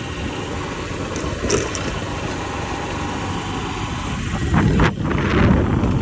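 Steady engine-like mechanical running noise, with a sharp click about a second and a half in and a louder stretch with a few knocks near the end.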